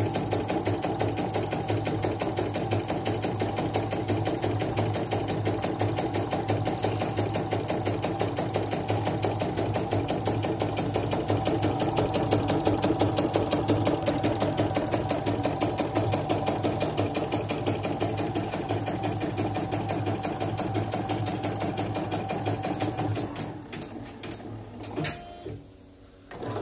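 Portable computerized embroidery machine (a CNY-branded Yoko clone) stitching a test design with a fast, even run of needle strokes, running smoothly after repair. The stitching stops about three seconds before the end, and a few light clicks follow.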